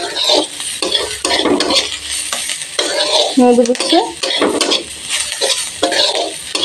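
A metal spatula stirring and scraping sliced onions and green chillies around a metal kadai in repeated strokes, over a steady sizzle of the vegetables frying in hot mustard oil.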